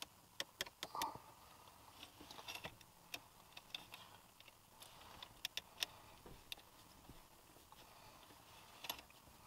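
Faint, scattered metallic clicks and taps of small parts being handled as an aluminium sport pedal pad and its screws are fitted onto a car's brake pedal, in small clusters with pauses between.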